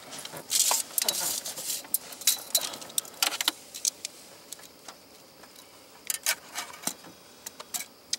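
Steel tape measure pulled out and laid along a fish, the metal blade clicking and rattling as it is handled. The clatter and rustle are densest in the first couple of seconds, then thin to scattered clicks.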